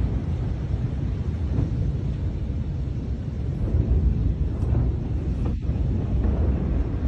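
Steady low rumble and buffeting picked up by a phone's microphone while the phone is swung about.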